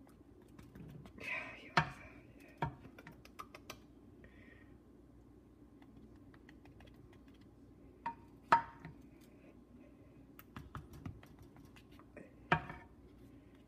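A spoon clinking and scraping against a glass baking dish while it is worked through a thick, creamy food, with a few sharp clinks: the loudest about two seconds in, just past eight seconds, and near the end.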